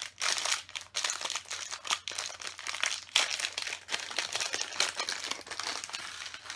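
Plastic parts bags of LEGO pieces crinkling as they are handled and moved about, with quick sharp crackles throughout.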